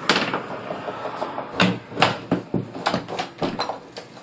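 A door being shut and locked: a clatter as it closes, then a string of sharp clicks and knocks from its latch and lock.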